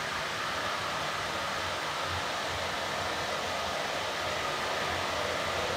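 Water running from a handheld shower head into a plastic washbowl, filling it with warm water: a steady, even rush of water.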